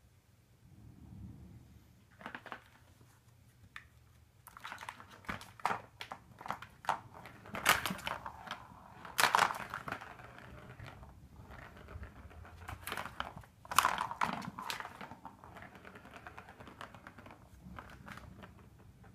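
Cat batting a light-up ball around the plastic track of a Super Roller Circuit cat toy: irregular clicks, clatters and rolling rattles of ball and paws on hard plastic. Sparse at first, busier from about four seconds in, with the loudest clatters near the middle and again about fourteen seconds in.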